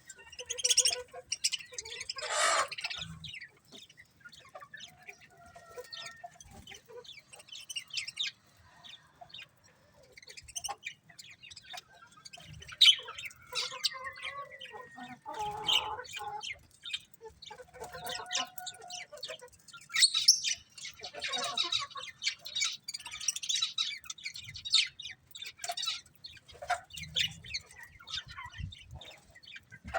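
Several budgerigars chirping and chattering: a dense run of short, quick chirps with louder bursts now and then.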